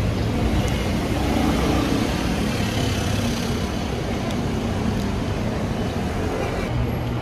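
Street traffic noise: a steady run of motor vehicle engine and road noise.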